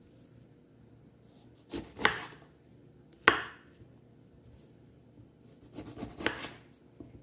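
Kitchen knife halving lemons on a wooden cutting board, with sharp knocks of the blade against the board: one cut about two to three seconds in, another about six seconds in.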